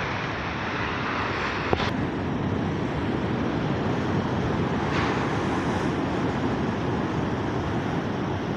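Sea surf washing against a rocky shore, with wind rumbling on the microphone. The wash swells about a second in and again about five seconds in, and a single sharp click sounds just under two seconds in.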